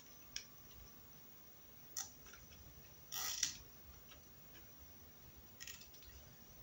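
Faint clicks and a short scrape of small metal parts being handled at the universal joint of a Renault Duster driveshaft: single clicks about half a second in and at two seconds, a longer scrape around three seconds, and another click near the end.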